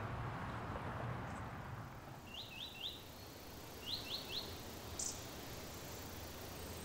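Outdoor ambience: a steady background hiss that fades over the first two seconds, then a bird chirping in two quick groups of three short notes, with a single higher chirp about five seconds in.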